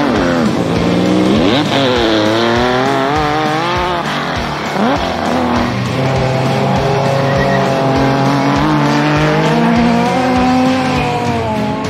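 Race car engines revving hard and dropping back again and again as the cars go through corners, over background music with a steady beat.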